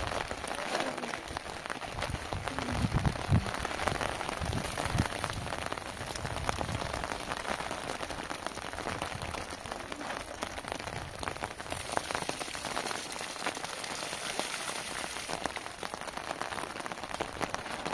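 Heavy rain falling steadily on a plastic-sheet roof and muddy ground, with runoff pouring from the sheet's edge. A few dull knocks stand out about three seconds in.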